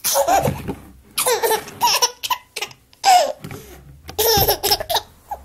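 A toddler's laughter in four bouts with short pauses between them.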